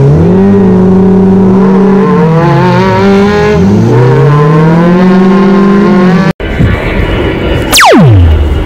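Off-road buggy's engine revving hard, its pitch rising and falling several times as it strains to climb out of mud and fails. It cuts off abruptly about six seconds in, followed by a loud sound effect with a steep falling whistle-like sweep.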